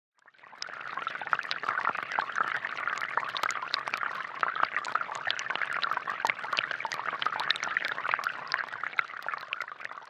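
Thin streams of water from a homemade bottle-and-straw rain fountain falling onto wet pebbles in a plastic tub: a steady patter and splash of many small drops. It begins about half a second in and fades just before the end.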